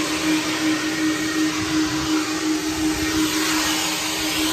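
Vacuum cleaner running steadily while a car's interior is cleaned out: a constant hum under a steady rush of air.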